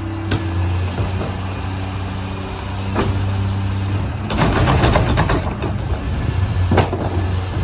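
Mack LR McNeilus rear-loader garbage truck with its diesel engine running steadily, a few sharp knocks, and a louder rattling clatter from about four seconds in.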